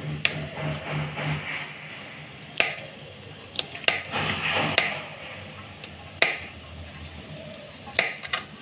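Kitchen knife dicing a green bell pepper on a plastic cutting board: irregular sharp knocks of the blade against the board, a second or more apart.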